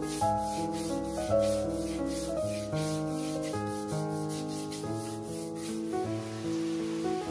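A wide scrubbing brush working a wet, foamy tiled shower floor and its grout joints in quick, repeated strokes, a few each second, that stop about six seconds in. Background music runs throughout.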